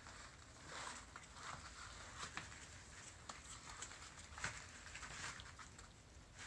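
Corgi puppies scrabbling about in a bed of wood shavings: faint scattered rustling and crackling, with a few sharp light clicks.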